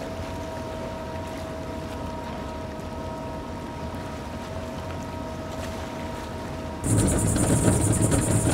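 Outboard-powered skiff running across open water: a steady low rumble and wash with a few held tones over it. About seven seconds in it turns suddenly much louder, with a rushing, hissy top.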